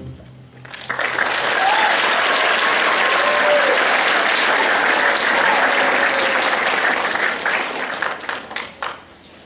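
A string orchestra's last chord dies away, then an audience applauds, dense and steady, thinning to scattered claps and fading near the end.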